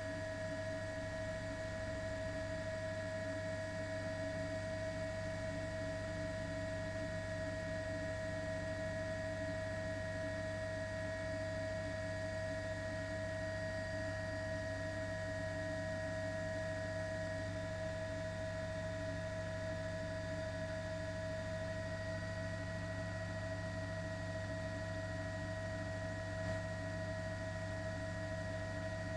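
Steady hum of several fixed tones over a faint hiss, unchanging throughout: the turbine and gearbox whine of a news helicopter.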